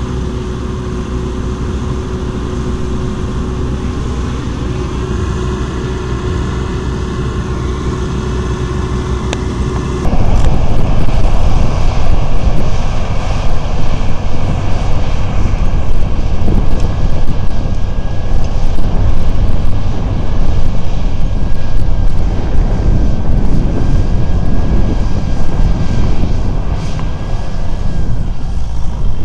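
An old Claas combine harvester's engine runs steadily while harvesting. About ten seconds in the sound cuts abruptly to a louder Fendt tractor engine working under load as it pulls a reversible plough, with wind rushing on the microphone.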